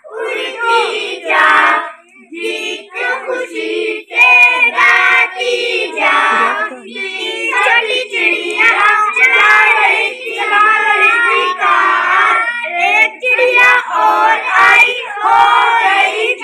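A group of children singing an action song together, in short phrases with brief breaks between them.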